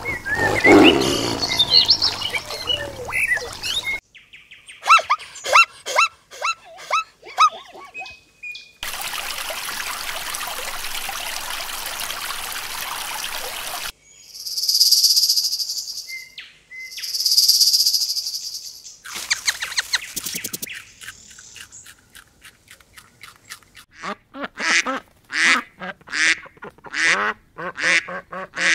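A string of separate animal sound clips. Around the middle a python hisses twice, each hiss about two seconds long. Near the end a flock of white domestic ducks quacks in a rapid series.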